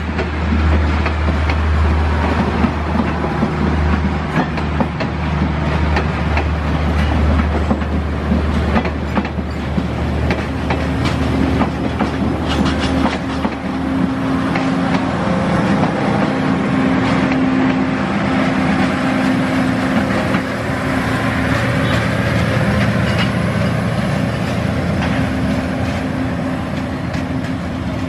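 Passenger coaches of a diesel-hauled express train rolling past close by, wheels clacking over the rail joints. A steady low hum runs through the first half, and a steady drone takes over from around the middle.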